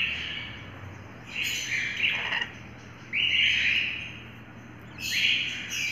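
Lorikeets giving about four short, harsh, rasping calls, each lasting up to a second, with short pauses between them.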